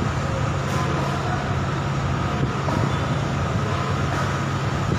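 Steady low engine hum with traffic noise, even and unbroken throughout.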